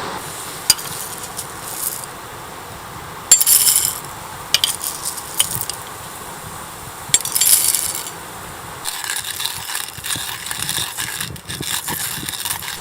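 Small hard objects clinking and clattering as they are handled, two of the clinks ringing briefly, then a stretch of rustling and light tapping near the end.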